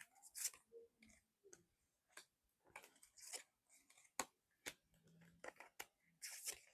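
Faint, scattered clicks and light taps of tarot cards being handled and laid down.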